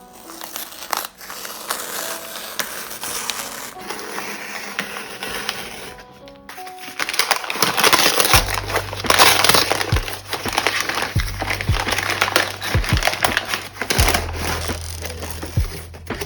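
Packaging crinkling and rustling as it is handled, over background music whose bass and beat come in about eight seconds in.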